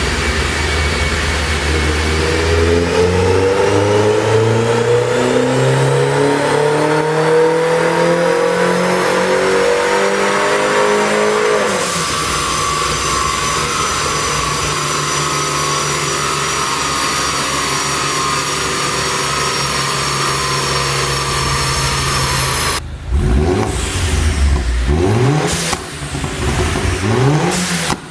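Turbocharged 1.6-litre N14 four-cylinder of a 2008 Mini Cooper S on a chassis dyno: a full-throttle pull with the engine pitch climbing steadily for about ten seconds. The throttle then closes suddenly and it runs down with a steady whine. Near the end come several short revs with sharp cracks, typical of the exhaust pops of a pop-and-crackle tune.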